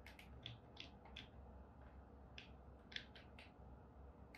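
Faint computer keyboard and mouse clicks, about ten of them at irregular intervals, over a low steady room hum.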